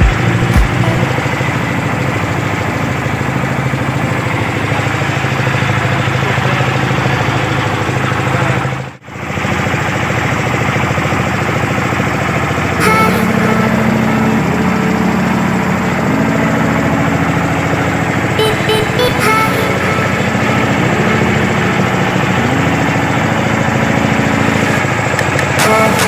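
Fishing boat's engine running steadily, with the sound dropping out briefly about nine seconds in.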